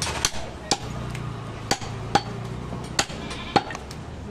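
Meat cleaver chopping goat meat and bone on a wooden log chopping block: about seven or eight sharp, irregularly spaced knocks, with a low steady hum underneath.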